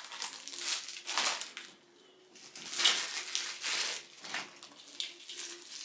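Clear plastic wrapping crinkling and rustling as sunglasses are handled and unwrapped from their case, in a run of irregular rustles with a brief lull near two seconds and the loudest crinkle around three seconds in.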